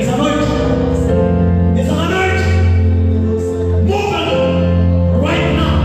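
Gospel music with singing, over a steady bass.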